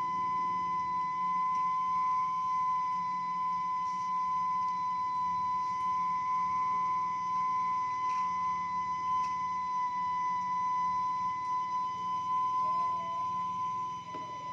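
Steam whistle of a kue putu seller's steamer: one steady, unbroken high whistle from steam escaping the boiler, the traditional sign that the putu cakes are being steamed.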